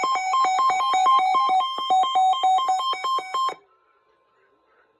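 Fast electronic synthesizer tune of short, buzzy notes in quick succession, alternating mostly between two pitches. It stops abruptly about three and a half seconds in.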